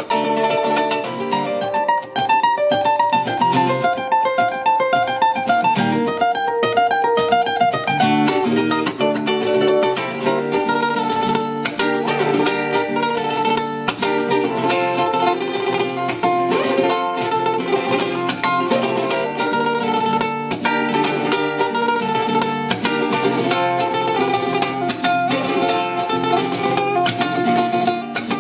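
Instrumental break on ukulele and acoustic guitar. For the first eight seconds or so the ukulele plays a fast, repeating picked melody over the guitar. After that both strum hard and fast with sharp percussive strokes.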